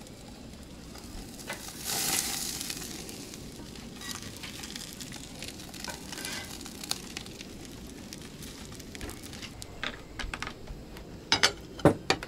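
Red snapper sizzling on a hot grill grate over open flame, the sizzle swelling briefly about two seconds in. Small ticks of tongs on the grate, and a few sharp clicks near the end.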